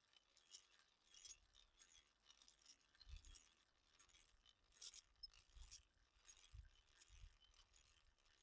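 Near silence, with faint, irregular clicking and scraping, about two or three clicks a second, from the gears of a hand drill being cranked to twist a twine loop for rope making; a few soft low thumps.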